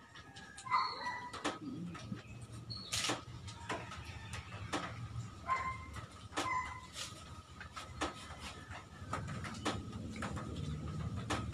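Close-up eating sounds of people chewing and eating with their hands: a string of sharp clicks and smacks, with a few short bird chirps in the background.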